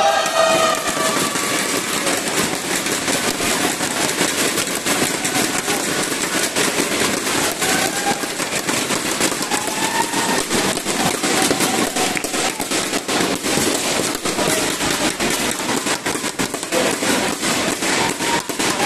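Crowd cheering after a point, a loud shout at the start giving way to a continuous rapid clatter of inflatable thundersticks being banged together and hands clapping.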